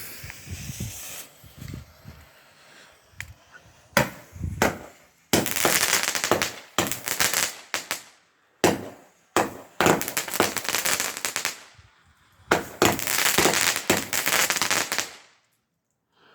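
Standard Fireworks 'Whirling Waves' 18-shot barrage firing: sharp launch bangs from about four seconds in, each volley breaking into dense crackling. Three long stretches of crackle, with short gaps between them, stop about a second before the end.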